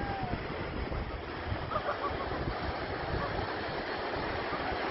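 Sea surf washing steadily onto a pebble beach, with wind buffeting the microphone in a low, flickering rumble.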